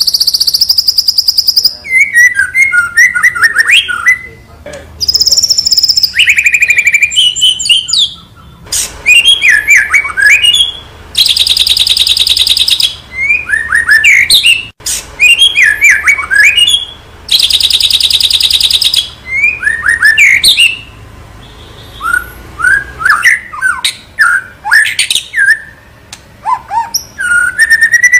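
White-rumped shama (murai batu) singing loudly and continuously: quick sliding whistled phrases alternating with harsh, dense rattling trills, each lasting about a second and a half.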